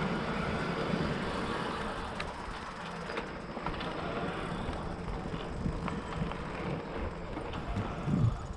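Fat bike rolling over a dirt and wood-chip path: a steady rumble of the wide tyres, with scattered small clicks and rattles and a louder thump near the end.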